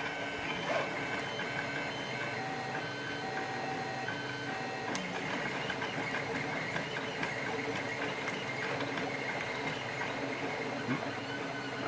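Printer running, its motors whining in a string of short steady tones that keep changing pitch, with a few faint clicks over it.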